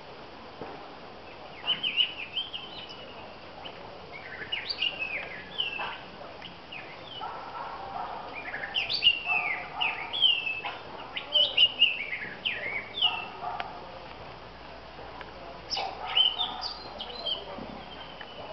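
Orange-headed thrush singing: groups of varied, clear notes that slur quickly down and up in pitch, with short pauses between the groups. The busiest run of phrases comes in the middle.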